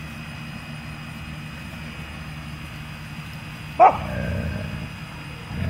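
Dog growling low and steady over a bone, with one short sharp bark about four seconds in, after which the growl briefly swells.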